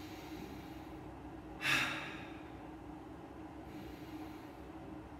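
A person takes one short, sharp breath about a second and a half in, with a fainter breath a little before the end. A steady low hum from the room runs underneath.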